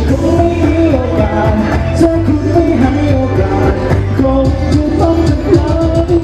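A man singing a song live into a handheld microphone, over music with a steady bass line and drum beat.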